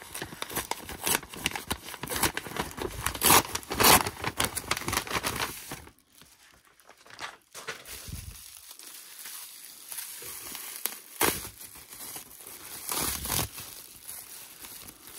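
Kraft paper envelope and plastic bubble wrap crinkling and rustling as they are handled and unwrapped. The crinkling is dense for the first six seconds, drops to a short lull, then goes on in sparser crinkles with one sharp crackle about two-thirds of the way through.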